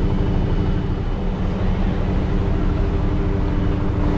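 A large truck's engine running steadily: a low rumble with a steady, even hum over it.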